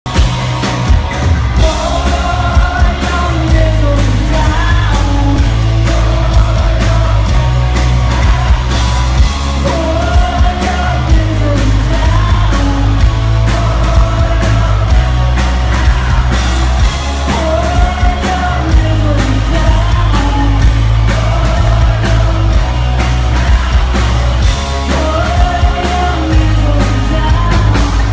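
Live rock band playing loud through a concert PA, recorded from the audience: electric guitar, bass and drums with heavy, booming low end, and a woman singing lead.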